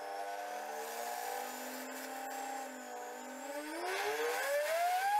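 A JB-VSM-50 router table's 1.5 kW spindle motor runs with a steady whine. From about three and a half seconds in, the pitch climbs smoothly as the speed dial is turned up towards its top speed (up to 24,000 rpm).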